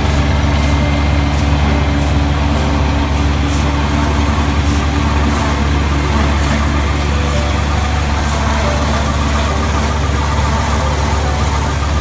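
Yanmar CA180P rice combine harvester running steadily while harvesting, its engine and threshing gear making an even drone. Irregular sharp ticks sound over the drone throughout.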